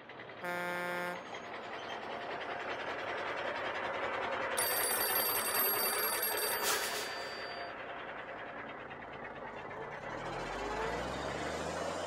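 Cartoon sound effects: a short horn honk about half a second in, a truck driving, and an old-style telephone bell ringing for about two seconds around the middle. A low engine hum rises near the end.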